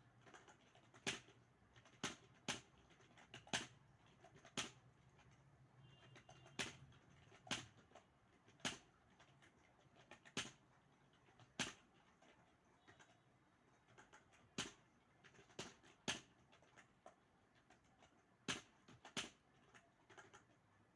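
Keys of a computer keyboard being typed on: sharp separate clicks, irregularly spaced at about one or two a second.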